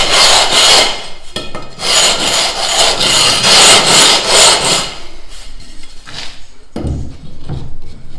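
A gypsum decorative-stone tile being scraped with a hand tool in quick back-and-forth strokes, shaping it to fit. The scraping stops about five seconds in, and softer knocks follow near the end.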